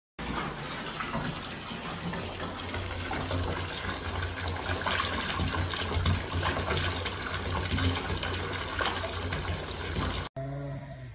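Bath tap running, water pouring steadily into a bathtub. It cuts off suddenly near the end and gives way to a fainter sound with a few steady tones.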